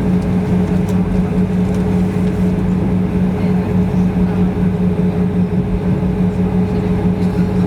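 Airbus A320 cabin noise: a loud, steady drone of engines and ventilation with two constant low hums.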